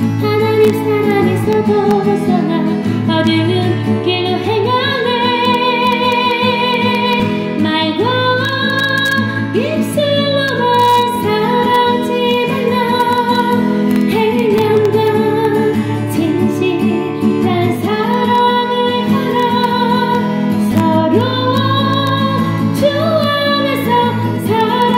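Background music: a woman singing a Christian praise song over instrumental accompaniment.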